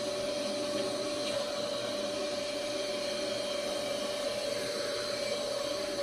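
Vacuum cleaner running steadily with a constant whine, sucking hornets off their nest.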